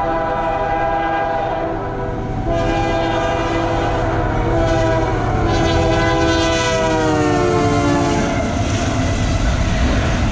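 Freight locomotive's multi-note air horn sounding as the train passes close by. It dips briefly about two seconds in, then holds a long blast whose pitch falls as the locomotive goes by, and stops near the end. The low rumble of the train continues throughout.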